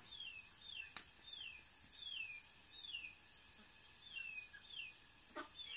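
A bird repeating a short, down-slurred chirp over and over, a little under twice a second, with a single light click about a second in.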